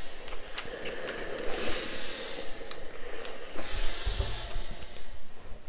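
Steam iron hissing as it puffs steam, in two stronger bursts, with a dull bump a little past the middle.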